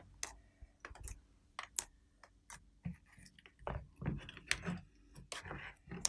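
Irregular light clicks and taps of small objects being handled, a dozen or more spread unevenly, some a little louder with a short rattle after them.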